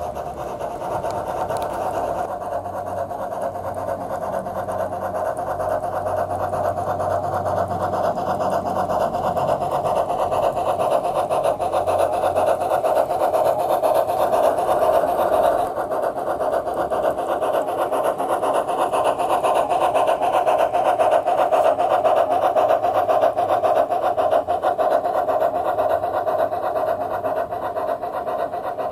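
Bachmann G-scale Climax model geared steam locomotive running along the track: its Soundtraxx Tsunami decoder plays the steam-engine sound through the onboard speaker, mixed with the mechanical running noise of the model's drive and wheels on the rails. The sound is steady and rapid, and grows louder as the train comes close.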